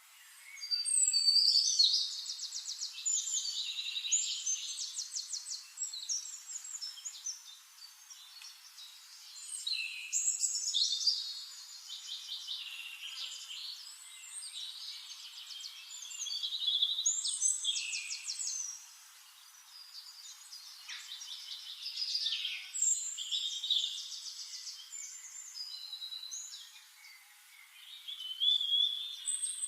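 A songbird singing long, rapid, varied phrases full of fast trills and twitters, five of them with short pauses in between.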